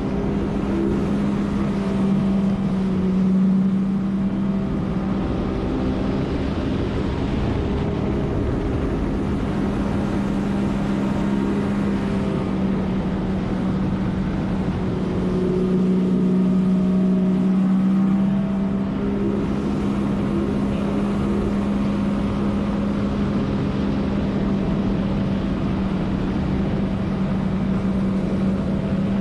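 Jet ski engine running at a steady high speed, around 34 mph, a constant drone over the hiss of water spray and wind. It swells slightly twice, a few seconds in and just past the middle.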